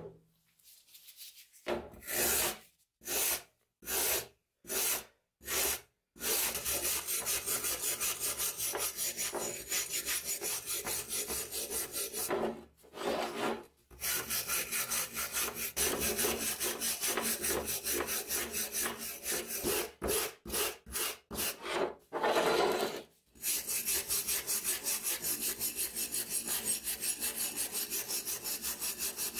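Hand wire brush scrubbing heavy rust off an old steel meat cleaver blade. A few separate strokes at first, then fast back-and-forth scraping, several strokes a second, broken by a couple of short pauses.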